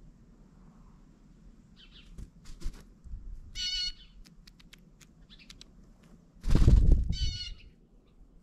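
A blue jay at a seed pile on snow, its wingbeats a loud rush close to the microphone as it flies off about six and a half seconds in. Harsh bird calls come twice, near three and a half and near seven seconds, with scattered sharp taps of pecking in between.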